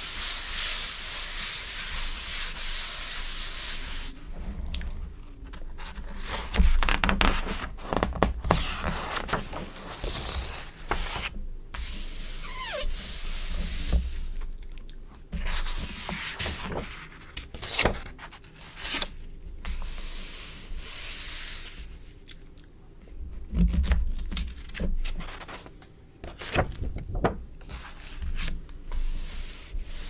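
Hands rubbing and smoothing across glossy magazine pages, a steady hiss for the first four seconds. After that, pages being lifted and turned, with irregular crinkles and crisp snaps of the glossy paper between short quiet gaps.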